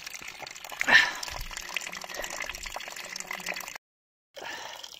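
Fresh mountain spring water running and splashing, with a brief louder splash about a second in. The sound breaks off for about half a second near the end.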